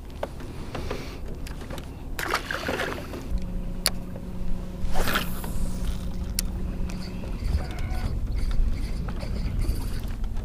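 Minn Kota bow-mount electric trolling motor humming steadily for about four seconds in the middle, over a low rumble. Scattered clicks and rattles of fishing tackle being handled.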